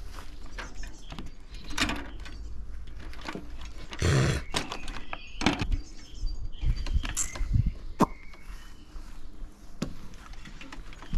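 Scattered knocks, clicks and light metallic rattles, with a short rustling burst about four seconds in and a sharper knock about eight seconds in.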